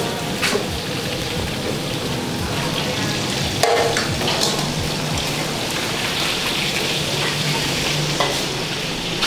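Food frying in hot oil in a pan, a steady sizzle throughout, with a few sharp clicks and knocks of stirring.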